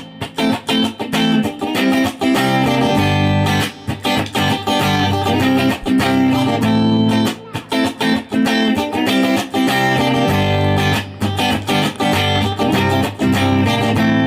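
Background music led by guitar, with plucked and strummed notes.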